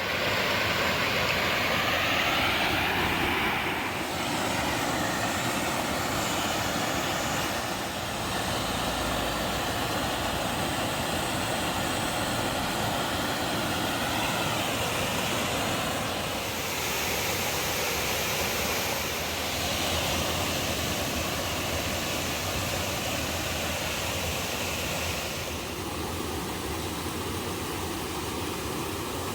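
Steady rush of water flowing down a small stream, an even noise without a beat, its tone shifting slightly a few times.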